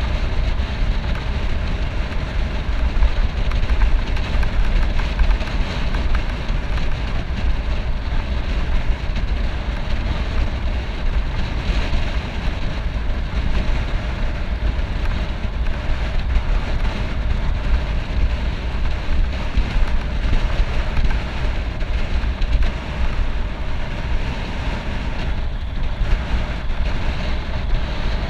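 Steady wind noise buffeting a moving bicycle-mounted camera's microphone, mixed with the rush of road bike tyres rolling on cracked asphalt.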